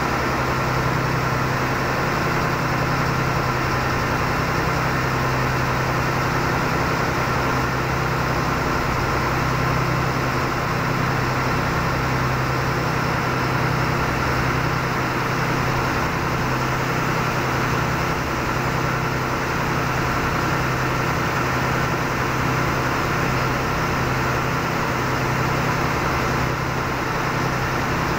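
A river boat's engine running steadily under way: a constant low drone with a fine, even pulse.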